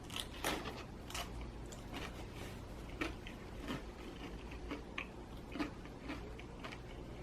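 A person chewing crispy homemade pizza crust close to the microphone: a run of short crunches, roughly one or two a second.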